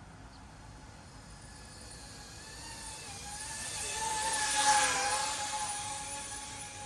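FPV drone (DJI Avata 2) whining from its propellers as it flies close past, growing louder to a peak a little past halfway and then fading with a slight drop in pitch.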